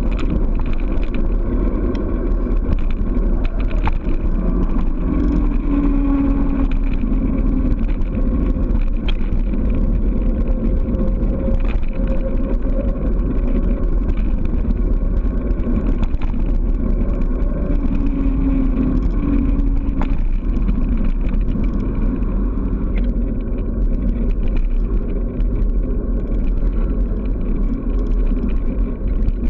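Steady, loud wind buffeting on a handlebar-mounted camera's microphone mixed with bicycle tyres running on asphalt at speed downhill, with occasional small knocks from road bumps.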